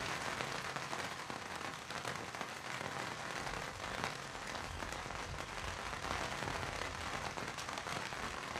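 Steady rain pattering on a surface, a dense crackle of drops that starts suddenly.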